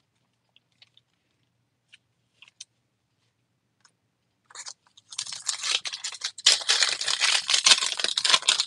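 A few faint ticks. Then, from about four and a half seconds in, a Topps Finest foil pack wrapper crinkles and tears as it is opened, loudest near the end.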